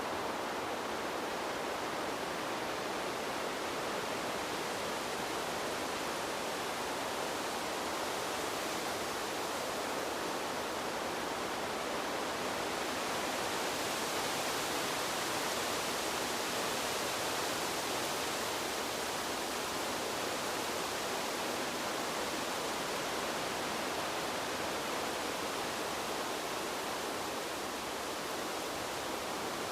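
Steady wind blowing, an even rushing noise that swells a little about halfway through and then eases again.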